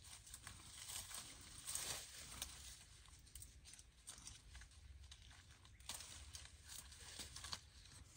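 Faint rustling and crinkling of orange-tree leaves and branches, with small irregular snaps and clicks, as oranges are picked by hand.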